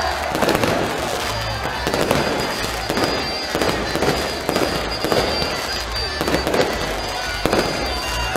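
Aerial fireworks going off in quick succession, many sharp bangs and crackles overlapping, with music playing underneath.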